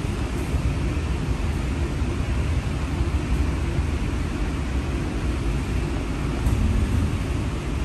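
Steady low rumble of a streetcar running along its track, heard from inside the passenger cabin.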